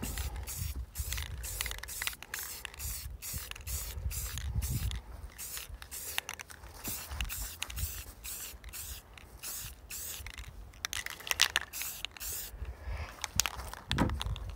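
Aerosol spray-paint can spraying in short, quick bursts, about three hisses a second.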